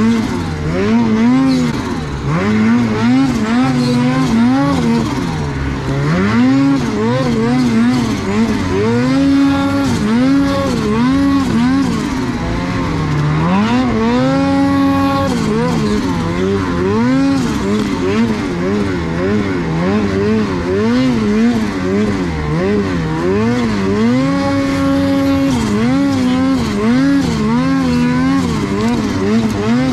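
Ski-Doo 850 turbo snowmobile's two-stroke engine revving up and down over and over as the throttle goes on and off through tight, technical climbing in deep snow. The pitch rises and falls every second or so, held high for a moment now and then.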